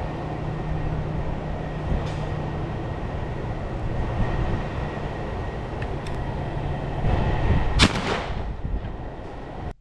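A single shotgun shot about eight seconds in, over a steady mechanical hum and rumble.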